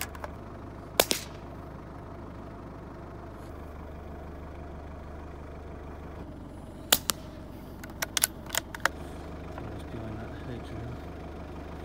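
Vehicle engine idling steadily under rifle fire from the vehicle: a sharp report about a second in and another about seven seconds in, followed by a quick run of clicks as the rifle's action is worked.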